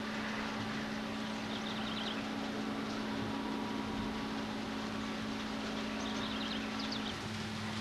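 Distant GE U20C diesel-electric locomotive, its twelve-cylinder engine running with a steady low hum that shifts slightly near the end as a freight train approaches. Two short clusters of high chirps come through over it.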